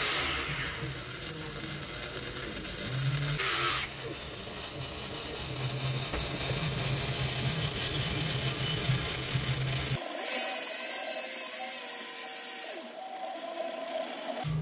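Wire-feed (MIG/flux-core) welding arc crackling and sizzling steadily as a bead is run on a steel patch; the sound changes abruptly about ten seconds in.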